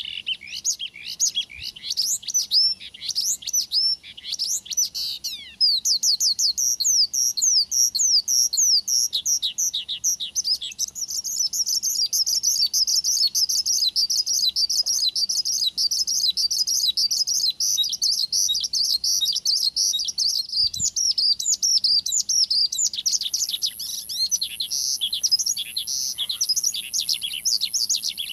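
Male Javan bush lark (branjangan) singing vigorously: a continuous, rapid stream of quick, high, downward-slurred notes that packs into a faster, denser trill in the middle, with a thin high buzz joining near the end.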